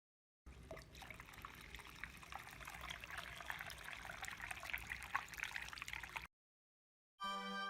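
Water trickling and spluttering out of the outlet of a homemade air-lift pump as air bubbles from an air pump lift it up the tube, with many small bubbly clicks over a low steady hum. It stops suddenly near the end, and music begins just before the end.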